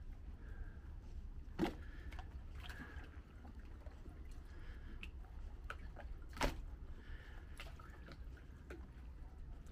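Harbour water lapping and sloshing against moored boats, with scattered light drips and ticks and two sharper knocks, one about a second and a half in and one about six and a half seconds in.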